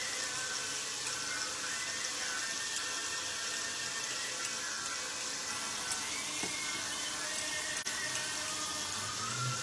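Onions frying in an enamelled pot, a steady sizzle.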